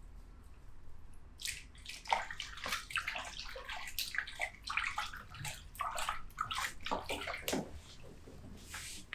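Water splashing and running, in irregular splashes that start about a second and a half in and go on until near the end.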